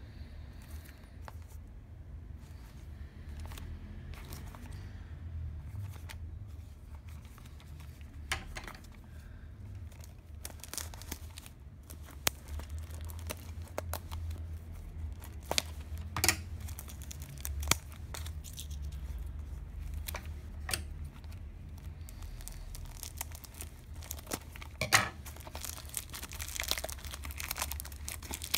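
Clear cellophane shrink wrap being picked open and peeled off a small cardboard toy box by hand: scattered crinkles and crackles that grow denser as it goes, with one sharp crackle standing out near the end, over a low steady hum.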